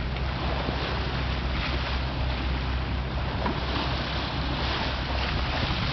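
Wind buffeting the microphone over the steady rush of water along a sailboat's hull under way.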